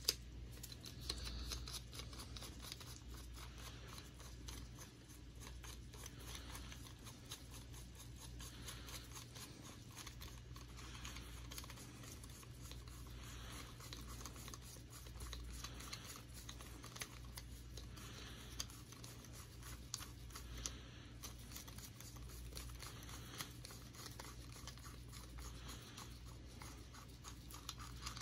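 Faint handling noise of a plastic phone tripod clamp in nitrile-gloved hands: glove rubbing, with scattered small clicks and scratches as the clamp's jaws are pulled open along their metal rod. A steady low hum runs underneath.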